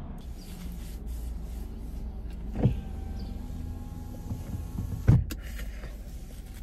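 Steady low hum inside a parked car, with two sharp knocks about two and a half seconds apart and a faint whine between them.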